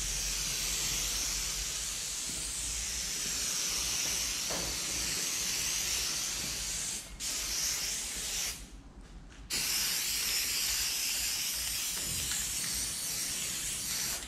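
Aerosol spray adhesive hissing steadily out of a can as it is sprayed across a plywood panel. The spraying breaks briefly about seven seconds in, stops for about a second soon after, then carries on.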